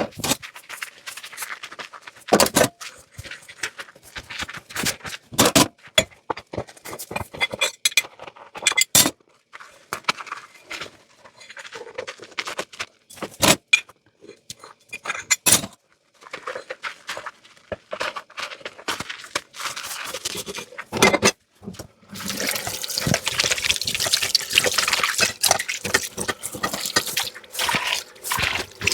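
Dishes being washed at a kitchen sink: scattered clinks and knocks of dishes being handled, then about two-thirds of the way through the tap is turned on and water runs steadily into the sink.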